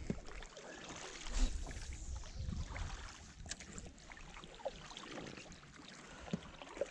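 Oars of an inflatable boat being pulled through the water: water swishing and trickling off the blades in uneven strokes, with a few light knocks.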